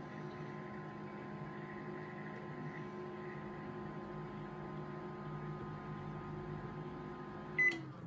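Panasonic inverter microwave oven running with a steady hum. Near the end the hum stops as the timer runs out, and the oven gives a single beep.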